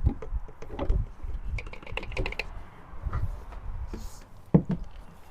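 Quick light clicks and taps of handling after the oil fill, the oil bottle and engine oil filler cap being worked by hand, with one sharper knock about four and a half seconds in.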